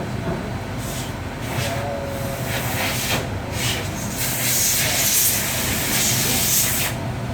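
HURON K2X8-F 5-axis machining centre running with a steady low hum, and a stretch of loud hissing from about four to seven seconds in.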